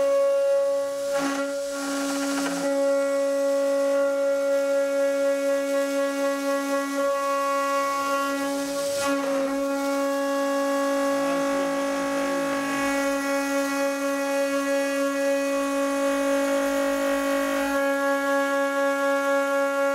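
CNC spindle with a small end mill milling aluminium plate: a steady, high-pitched whine with a lower tone beneath it. The whine wavers and breaks up briefly about a second in and again around nine seconds.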